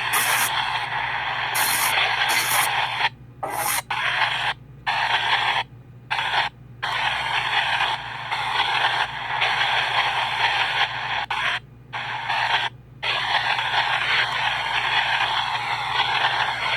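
PXB 07 spirit box sweeping through radio frequencies: a continuous hiss of radio static, broken by sudden brief cut-outs about seven times.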